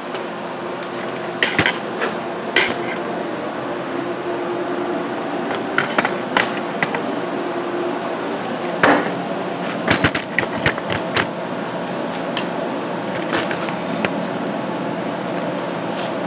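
Metal tools and parts clinking and tapping at irregular intervals, a dozen or so sharp strikes with the loudest about nine and ten seconds in, over a steady machine hum.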